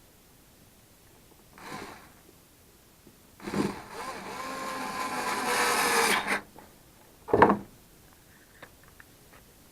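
A small power-tool motor runs for about three seconds, its pitch rising slightly as it goes, followed a second later by a single sharp knock.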